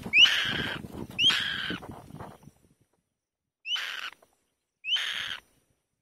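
Black-winged kite calls: four harsh, raspy screeches, each opening with a short rising whistle. The first two come close together over low rustling, and two more follow about a second apart after a short pause.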